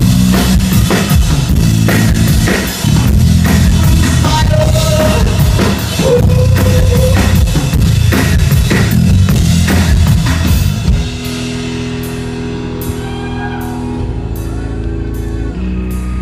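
Live band playing an instrumental section with a full drum kit driving over low held notes. About two-thirds of the way through the drums drop out, leaving a steady held low chord with light ticking on top.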